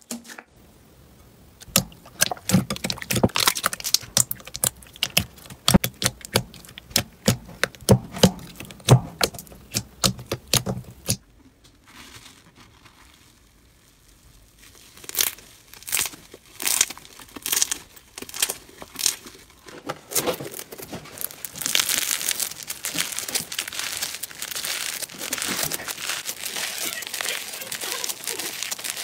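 Slime being worked by hand: sticky clicks and pops as a thick glossy slime is pressed and squeezed. After a short quieter pause come scattered clicks as a stringy slime is pulled apart, and then a dense, steady crackle from a bead-filled slime being stretched.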